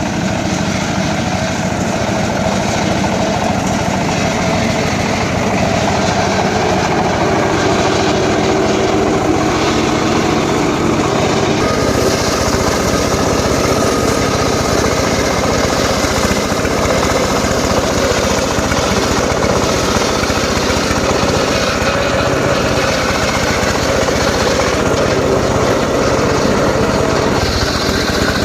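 Small engine of a power saw running steadily while working mahogany timber, getting a little brighter about twelve seconds in.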